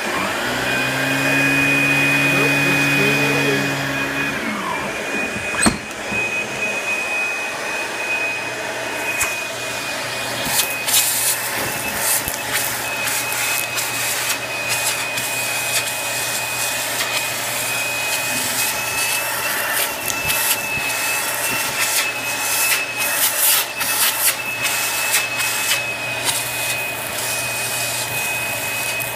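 Bagged upright vacuum cleaner running over carpet, its motor giving a steady high whine. From about ten seconds in there is a scatter of clicks and crackles as sand and trapped debris are sucked out of the carpet pile.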